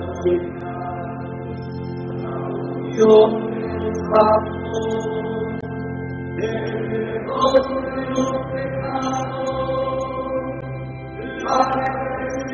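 Slow sung church chant: voices in long held chords that change every few seconds.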